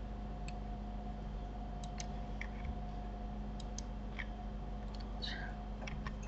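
Faint, scattered clicks of a computer mouse and keyboard as vertices are selected and moved, over a steady background hum with a thin whine that stops shortly before the end.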